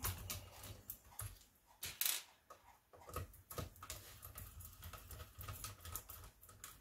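Irregular small clicks and taps of a screwdriver turning out the small screws that hold the logic board in an Apple II floppy drive, with the loudest knock about two seconds in.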